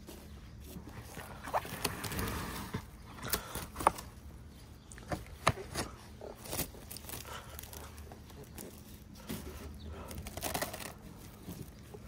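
Plastic cling wrap being pulled from the roll, stretched and pressed over a part, crinkling with irregular sharp snaps and crackles.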